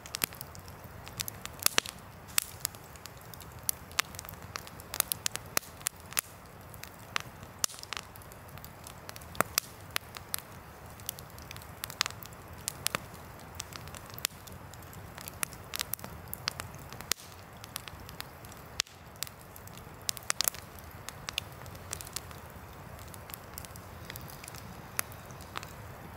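Wood campfire of burning logs crackling, with frequent sharp pops and snaps at irregular intervals over a steady low rush.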